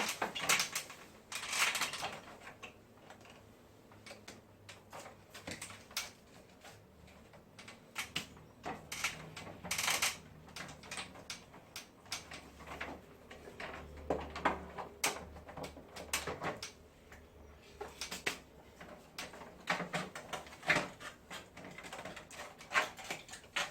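Irregular clicks, taps and knocks of hard parts being handled, with a faint low hum about halfway through.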